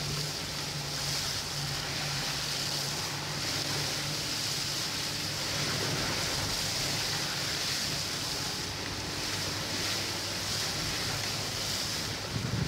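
Vehicle driving through floodwater, heard from inside the cab: a steady low engine hum under a constant rush of water spraying from the tyres.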